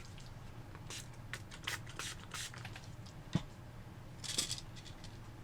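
Scrubbing the grimy edges of a plastic PS4 controller shell with rubbing alcohol: a run of short rubbing strokes, a sharp click a little after three seconds in, then a louder burst of scrubbing near the end.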